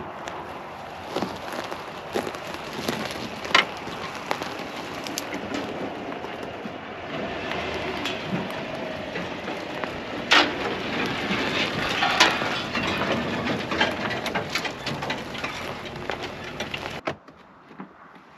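Chevrolet Silverado pickup towing a teardrop camper driving slowly over dry dirt and brush, its tyres crackling and popping over gravel and twigs along with the truck's running. The sound stops abruptly near the end.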